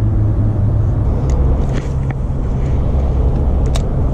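Wind buffeting the microphone: a loud, steady low rumble, with a few faint short ticks over it.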